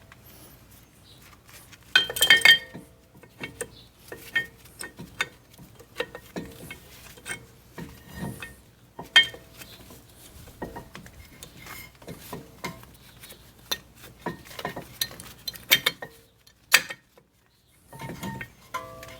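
Metal brake parts and tools clinking and knocking as the pads, clips and caliper hardware are handled, in irregular separate strikes. The densest, loudest run of clinks comes about two seconds in.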